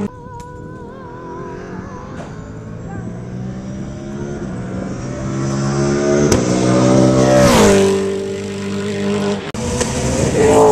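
V8 Supercar race car's V8 engine approaching at racing speed, growing louder, then passing with a sharp drop in pitch about two-thirds of the way through. Another engine sweeps past with a falling pitch near the end.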